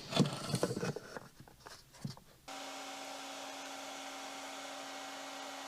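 Clicks and handling knocks on the speedometer parts, then about two and a half seconds in a heat gun switches on and blows steadily with a constant hum.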